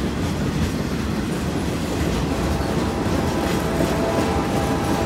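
Loaded freight-train flatcars rolling past close by: a steady rumble with wheels clicking over the rail joints. A faint thin squeal joins in about three seconds in.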